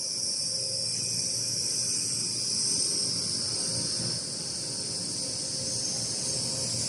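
Steady high-pitched insect chorus, like cicadas, running without a break, with a faint low rumble beneath it.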